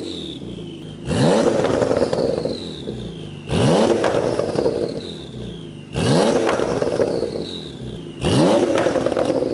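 Porsche 991 Turbo S twin-turbo 3.8-litre flat-six, through an Fi Exhaust valved catback with quad tips, revved four times at standstill, about every two and a half seconds. Each rev climbs sharply and drops back, and a high whistle falls away after it.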